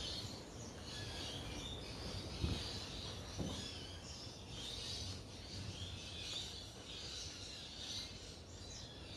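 Faint birds chirping and insects in the background, with two soft knocks about two and a half and three and a half seconds in.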